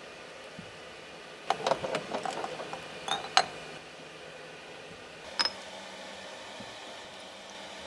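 Glass jars being lifted out of a pan of boiling water with metal tongs and set down: clinks and knocks of tongs and glass, a cluster about a second and a half in, two sharper ones around three seconds and one more past five seconds. A steady bubbling hiss of the boiling water runs underneath.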